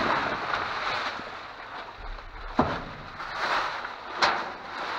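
Plastic bags and candy wrappers rustling and crinkling as they are handled, with a couple of sharp clicks in the middle and near the end.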